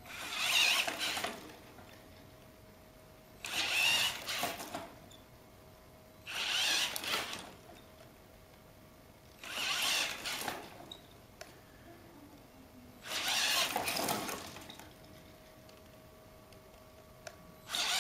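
Electric drive of a homemade gyroscopic inertial thruster whirring in repeated cycles, one burst of a second or so about every three seconds as its arm swings round, with a faint steady hum between the bursts.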